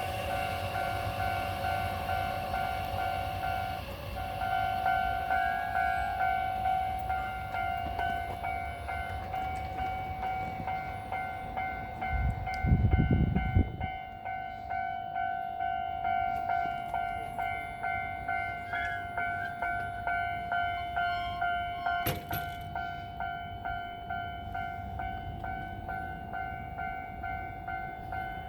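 Japanese level-crossing warning bell ringing in a steady, regular repeating ding over the low rumble of trains on the line. A short loud low rumble comes a little under halfway through, and a single sharp click comes later.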